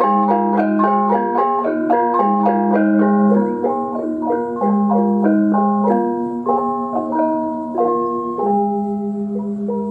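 Instrumental music: a steady melody of keyed or mallet-like notes over a low held note that changes every second or two.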